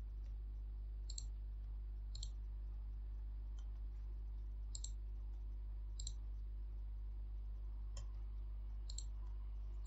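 Computer mouse button clicks, about six or seven spaced a second or so apart, over a steady low hum.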